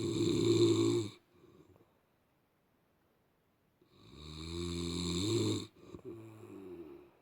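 A sleeping person snoring loudly: a short snore at the start, then after a pause a longer snore that swells, breaks off briefly and trails away more weakly.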